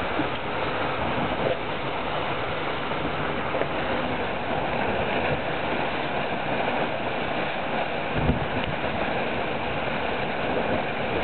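Steady rush of water streaming past the hulls of a Dragonfly 1200 trimaran sailing at around 9 knots, mixed with wind. A brief low buffet of wind on the microphone comes about eight seconds in.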